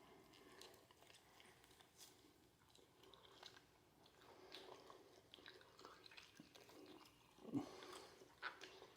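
Faint close-up chewing and biting of a raw steak, with scattered wet mouth clicks, and a brief louder low sound near the end.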